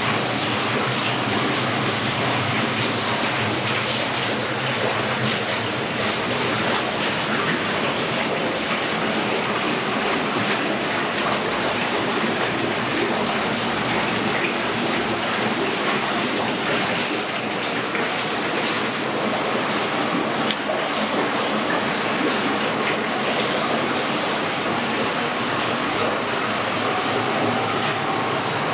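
Hot spring water running steadily into a wooden onsen bath, an even, unbroken rush of flowing water.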